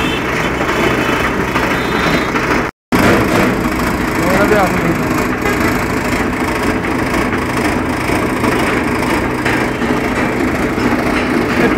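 Dashmesh straw blower running and blowing straw: a loud, steady, dense noise, broken by a short total dropout about three seconds in.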